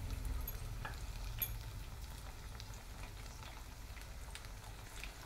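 Besan-coated spinach leaves shallow-frying in hot oil in a kadai: a steady sizzle with a few scattered pops.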